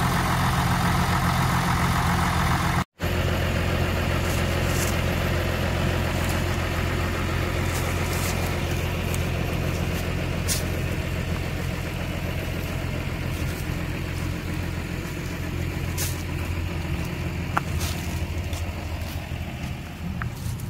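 John Deere 3350 tractor's diesel engine running steadily under heavy load, straining to tow a stuck forage truck out of soft, wet ground with a chain. The sound cuts out for an instant about three seconds in.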